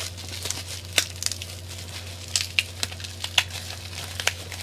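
Bubble wrap being pulled off a boxed action camera by hand: crinkling plastic with irregular sharp crackles, over a steady low electrical hum.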